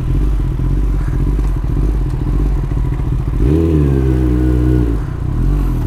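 Kawasaki ZX-10R's inline-four engine running while the bike is ridden, heard from the rider's seat; a held pitched note stands out for about a second and a half in the middle.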